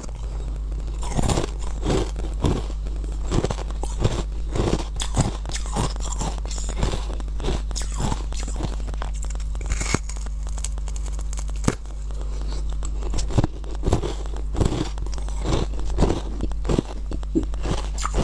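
Close-up biting and chewing of a molded block of frozen honey ice: irregular crunches and cracks as pieces break off and are chewed, over a steady low hum.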